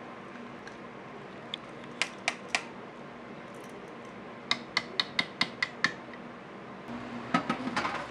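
Sharp metallic clinks of kitchen utensils: three, then a quick run of about seven at roughly five a second, then a denser ringing cluster near the end, over a steady background hum.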